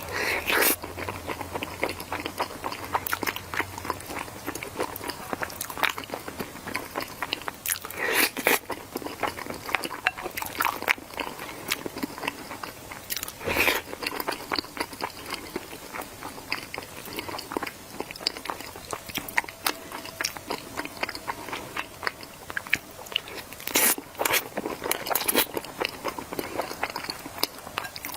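Close-miked eating: steady chewing with crunchy bites, the loudest crunches near the start, about 8 and 13 seconds in, and twice around 24 to 25 seconds in.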